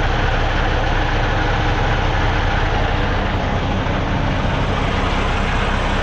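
Semi truck's diesel engine running, a steady low drone with even engine noise throughout.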